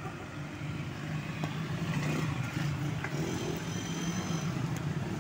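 Road traffic: cars and motorcycles driving past, with a steady low engine hum and tyre noise that grows a little louder after the first second.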